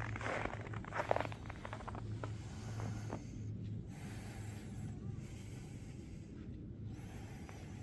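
Footsteps crunching in snow for the first second or two, then fading away, over a steady low hum.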